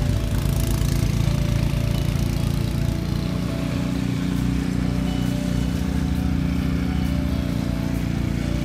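Gasoline snowblower engine running steadily while the machine chews through deep snow and throws it from the chute.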